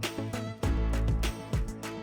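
Background music with a steady beat: a funky groove with a heavy low bass pulse and sharp drum hits.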